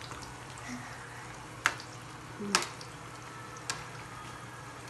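Three sharp clicks or knocks, about a second apart, the middle one loudest, over a steady low hum.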